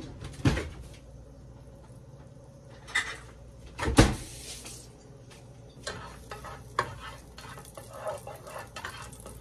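Cookware knocking, loudest at about half a second and four seconds in, then a spoon stirring and tapping in a nonstick pot of melting butter and olive oil over the last few seconds, with a low sizzle underneath.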